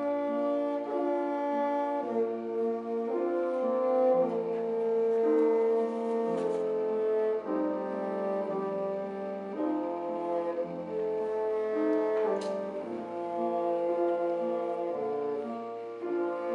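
Bassoon playing a slow melody of held notes, each lasting a second or two, with piano accompaniment underneath.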